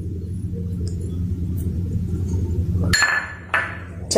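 Two ringing metal clinks about half a second apart, near the end, as a small stainless steel bowl knocks against the rim of a steel mixing bowl while flour is tipped out of it. A steady low hum runs underneath until then.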